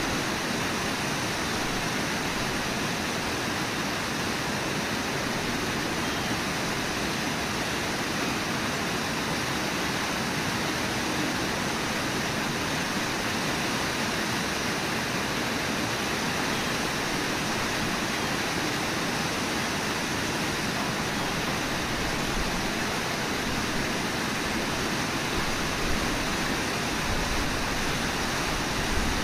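Steady rush of whitewater pouring over a low waterfall and through the rapids below it.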